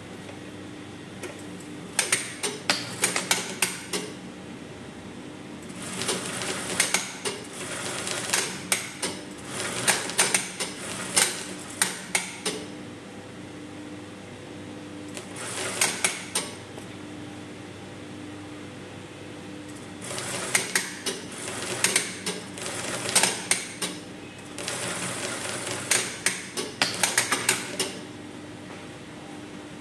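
Brother industrial sewing machine stitching in five bursts, from about a second to several seconds long, with short pauses between them. Each burst is a fast run of needle-stroke clicks. A steady low hum runs underneath throughout.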